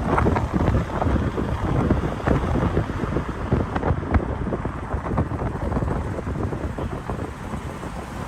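Wind buffeting the microphone at an open car window while driving, a loud, gusting rush over the car's road noise.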